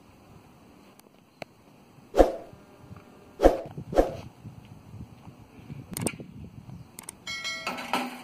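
A dog barking: three sharp barks between about two and four seconds in, and another about six seconds in.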